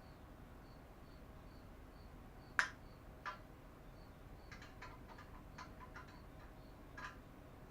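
Scattered sharp clicks and taps of hand tools securing the bicycle's add-on engine, the loudest about two and a half seconds in and a quick run of lighter ones a little later. Under them a cricket chirps faintly, about two to three times a second.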